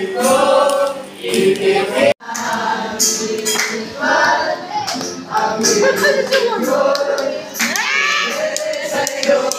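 A group of voices singing together to a strummed acoustic guitar. The sound cuts out for an instant about two seconds in.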